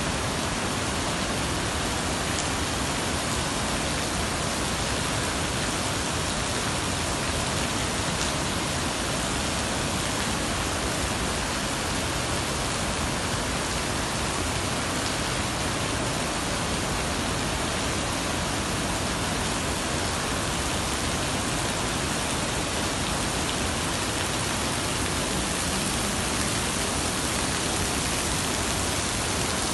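Monsoon water rushing and flowing, an even, unbroken noise.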